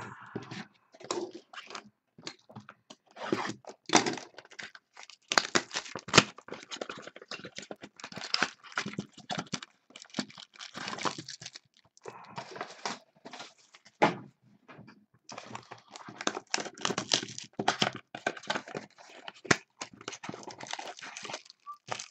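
Wrapping on a box of baseball cards and its foil packs being torn open and crinkled, in irregular crackling spells with a few short pauses.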